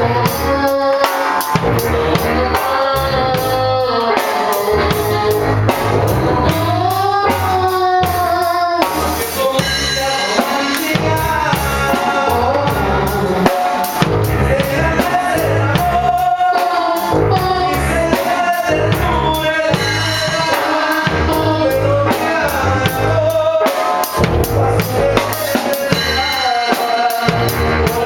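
Norteño band playing a song live: a drum kit keeps a steady beat under bass and melody instruments.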